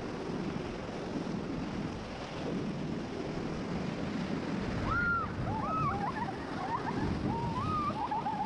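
River rapids rushing under a raft, with wind buffeting the microphone. About halfway through, a string of short high whoops and calls rises over the water.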